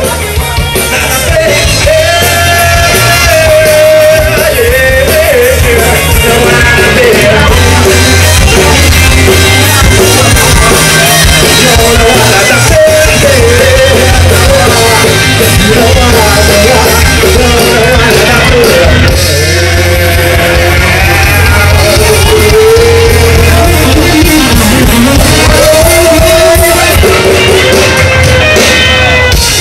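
Rock band playing live: electric guitar, bass and drums, with a male singer singing and shouting over them.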